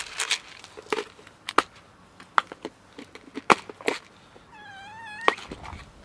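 Sharp clicks and knocks of a plastic food container being handled and dry cat food tipped into a plastic dish. Near the end, a black-and-white cat gives one wavering meow lasting under a second.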